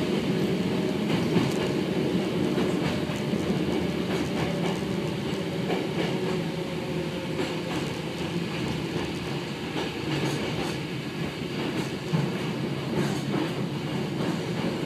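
Hakone Tozan Railway train running, heard from inside the car: a steady rumble of wheels on rail, with faint clicks as the wheels pass over rail joints.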